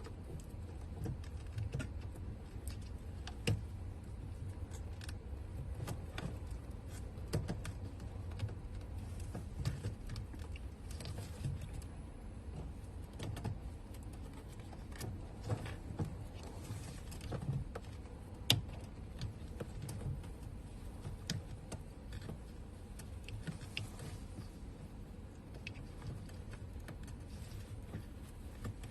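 Scattered light clicks, taps and rattles of hard plastic and metal parts being handled: a fuel pump assembly and its fuel line being worked into place and clipped together. A steady low hum runs underneath.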